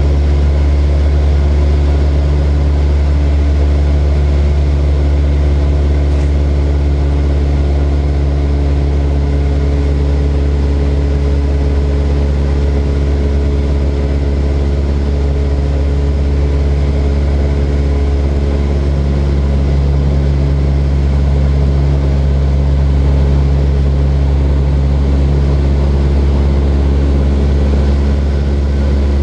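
Light propeller airplane's engine and propeller droning steadily, a loud, unchanging low hum with steady tones above it.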